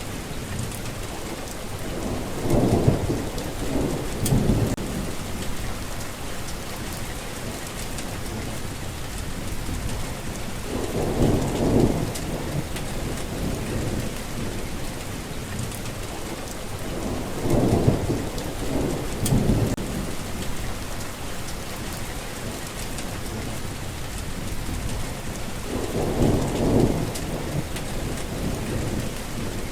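Steady rain falling, with low thunder rumbling four times, each roll swelling for a second or two before fading back into the rain.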